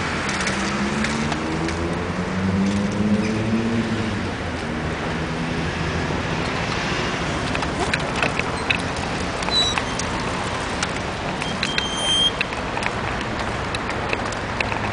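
Street traffic: a car engine rising in pitch as it pulls away in the first few seconds, then steady road and riding noise, with a couple of short high squeaks near the end.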